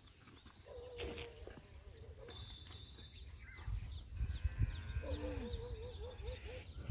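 Goats bleating: a short wavering bleat about a second in, and a longer quavering bleat near the end.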